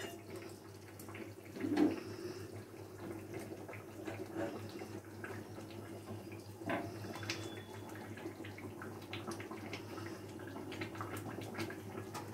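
Chicken curry with freshly added hot water simmering in a pan on a gas stove: faint steady bubbling with scattered small pops and ticks.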